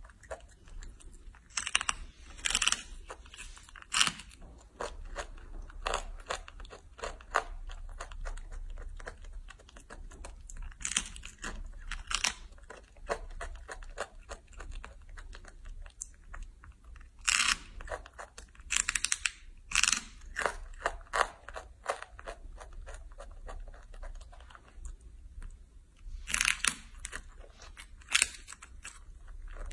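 A baby monkey biting and chewing dried red jujubes close to the microphone: an irregular run of small clicks, with louder bites every few seconds.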